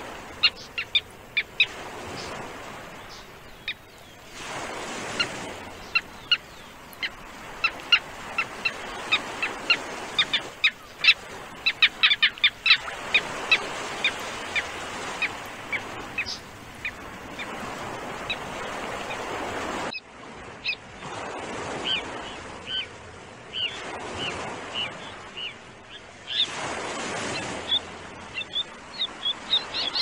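A flock of South American terns calling: many short, sharp, high-pitched calls, densest in the middle, over the wash of surf that swells and fades every few seconds.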